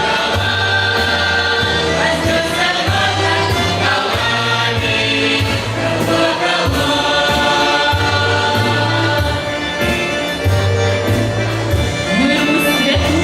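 Russian folk ensemble's choir singing in several voices over instrumental accompaniment, with steady low bass notes and a regular beat.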